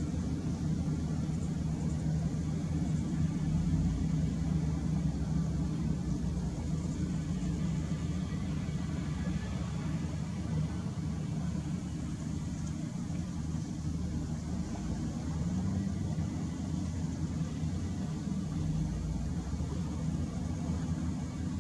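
Hitachi ZW310 wheel loader's diesel engine running steadily under load as the machine reverses, turns and drives into a sand pile, a low drone that swells a little at times.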